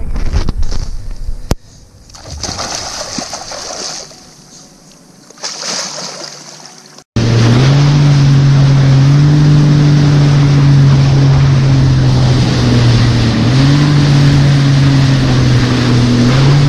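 Jet ski engine running at speed with water and wind rushing past; its pitch rises and eases off a few times as the throttle changes. Before it, after an abrupt cut, comes a few seconds of uneven noise that fades down and back up.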